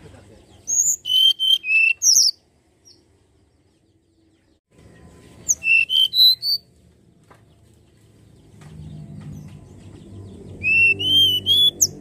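Hill blue flycatcher singing: three short phrases of clear, high whistled notes, each phrase about a second long, with pauses of a few seconds between them.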